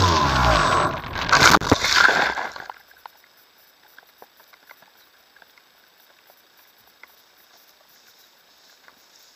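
Electric motor and propeller of a FunCub RC model plane, heard from its onboard camera, winding down in pitch. About a second in, the plane lands roughly in tall grass with a few loud scraping knocks and rustling as it skids to a stop. After that only faint ticks and grass rustle remain.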